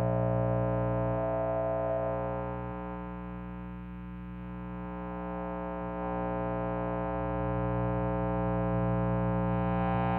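Amplifier hum and feedback: a steady buzzing drone of many stacked tones, with a higher feedback tone that fades away about two seconds in and returns near the end. The whole sound dips in level in the middle before swelling back.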